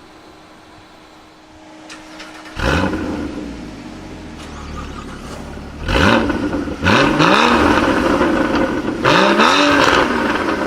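High-performance sports car engine idling quietly, then revved hard four times from about two and a half seconds in, each rev a quick rise and fall in pitch.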